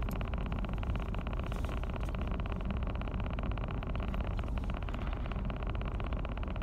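Car engine running steadily, an even hum heard inside the car's cabin.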